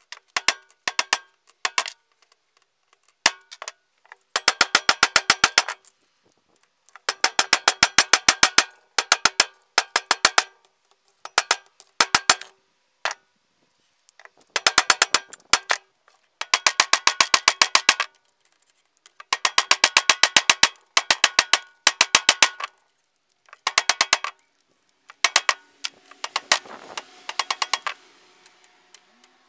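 Hammer striking a piece of steel half-pipe held on a steel block, flattening it into a foot plate, in rapid bursts of blows with a metallic ring. Near the end there is a rougher scraping sound.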